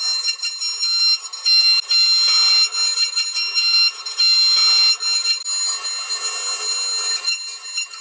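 CNC milling machine cutting brass with a small end mill: a loud, high-pitched whine with a steady tone, breaking off and coming back abruptly several times.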